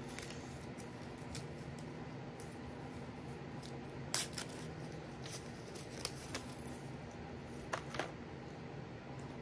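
Small plastic clicks from a GoPro Hero12 Black action camera being handled and fiddled with, three quick pairs of clicks spread through the middle and latter part, over a steady low hum.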